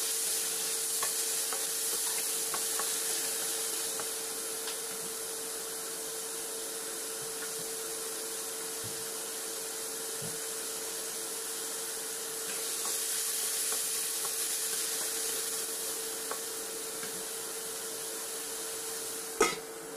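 Meat pieces sizzling as they fry in a wok, with a spatula stirring and scraping them in the first few seconds, over a steady hum. A single sharp clank near the end.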